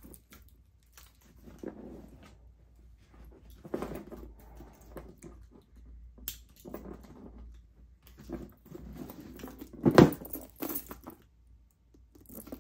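Heavy metal chain shoulder strap clinking and rattling in the hands as its clasps are clipped onto a tote bag's handles, with irregular handling noise and one sharper knock about ten seconds in.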